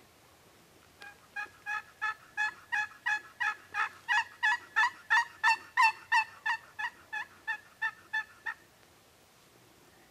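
A wild turkey yelping: a long, even series of about twenty yelps, roughly three a second, growing louder and then fading away over about seven seconds.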